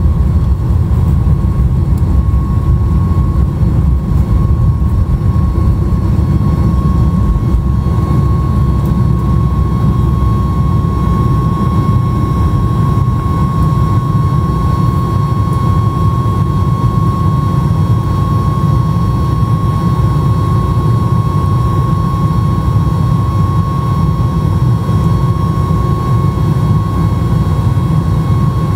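Boeing 737 MAX 8's CFM LEAP-1B turbofan engines at takeoff thrust, heard from inside the cabin over the wing: a loud, steady deep rumble with a steady high tone above it, through the end of the takeoff roll, liftoff and initial climb.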